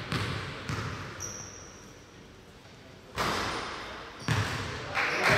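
A basketball bouncing on a hardwood gym floor: a handful of separate thuds that echo in the hall, the loudest about three seconds in.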